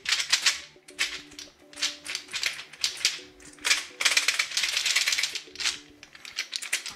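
Plastic keycaps on a washed keyboard key plate rattling in a string of short bursts, as the wet plate is shaken.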